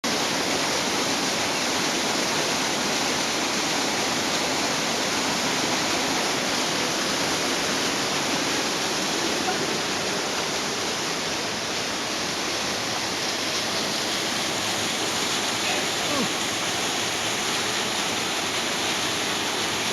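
Waterfall pouring steadily: a constant rush of falling water.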